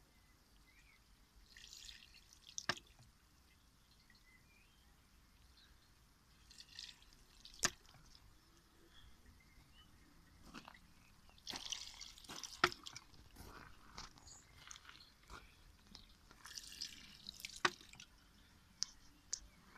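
A bamboo shishi-odoshi cycling: water splashes out of the tipping bamboo tube, and the tube knocks back down with a sharp hollow clack. This happens four times, about every five seconds, with water trickling in between.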